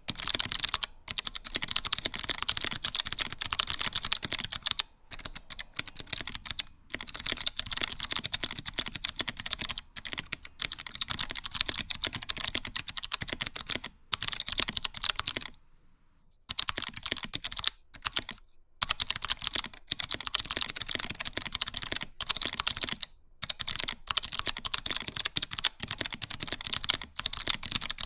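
Typing on a RAMA Works M65-A mechanical keyboard fitted with SMK second-generation white clicky switches and GMK Space Cadet keycaps in a solid aluminium case: fast, dense runs of crisp clicks, each switch giving a double click. The typing stops briefly a few times, longest about sixteen seconds in.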